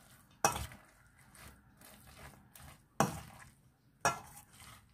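Bean sprouts and shredded vegetables being stirred and tossed through a very thick egg-and-flour batter in a stainless steel mixing bowl, with three sharp knocks of a utensil against the bowl, about half a second, three and four seconds in.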